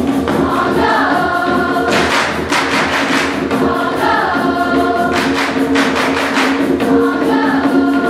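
A large mixed choir singing in parts over a quick, steady percussion beat.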